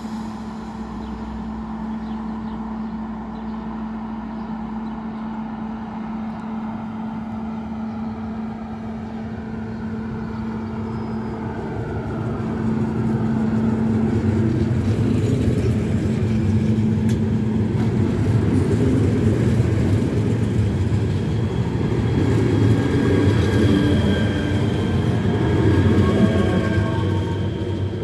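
Škoda EJ575 double-deck electric multiple unit approaching and passing along the platform: a steady hum grows into a louder rumble of wheels on rails as the cars go by, with whining tones near the end.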